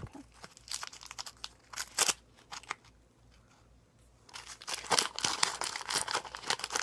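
Dum Dums lollipop wrapper being crinkled and unwrapped by hand: a few scattered rustles, then dense, continuous crinkling from about four seconds in.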